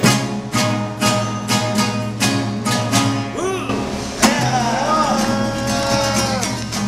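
Nylon-string acoustic guitars strummed in a steady rhythm. After about four seconds a final chord is struck and voices hold a long last note in harmony, with vibrato.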